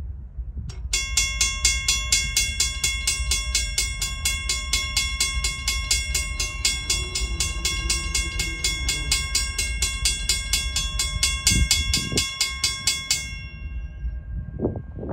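Railroad grade-crossing warning bell ringing in rapid, even strokes while the crossing gate arm comes down. It starts about a second in and stops near the end, once the gate is down, over a steady low rumble.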